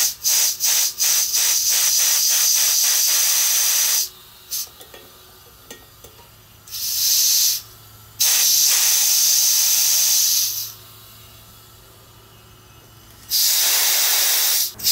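Propane vapour hissing out of a 1 lb propane cylinder's relief valve held open with forceps: a quick string of short spurts at first, then longer spurts of a few seconds each with quiet gaps between. Venting the vapour lets liquid propane flow into the cylinder from the larger tank as it refills.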